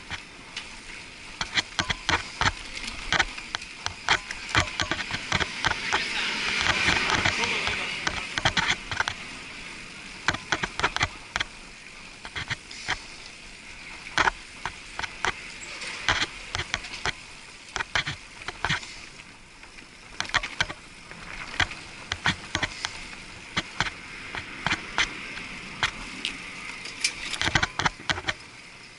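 Muffled riding noise of a bicycle heard through an action camera's waterproof housing, with many sharp, irregular clicks and knocks as it rolls over the paving. A broader swell of noise rises and falls for a couple of seconds about a quarter of the way in.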